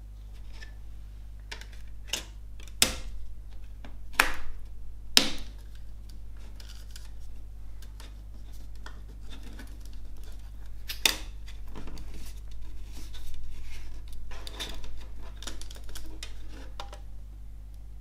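A plastic CD jewel case and disc being handled: several sharp plastic clicks and snaps as the disc is worked off and onto the tray's centre hub, with softer plastic rattling and rubbing between them.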